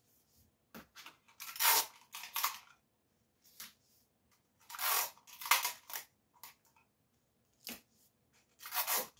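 Clear sticky tape pulled off a small handheld dispenser and torn off, in about three short rasps, with light clicks and paper handling in between.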